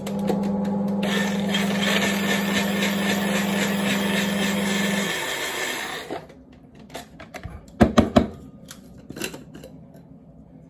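Compact personal blender running, pressed down by hand on its motor base while blending a green vinaigrette; the motor runs steadily for about five seconds, then winds down and stops. A few sharp knocks follow as the blending cup is handled.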